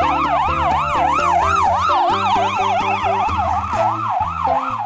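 Ambulance electronic siren wailing rapidly up and down, about two sweeps a second, then cutting off abruptly at the end.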